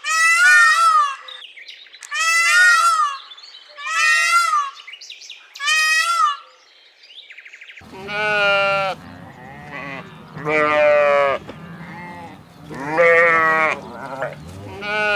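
Bleating: four high, quavering calls about two seconds apart, then, after a cut at about eight seconds, several lower quavering bleats over a faint background hum.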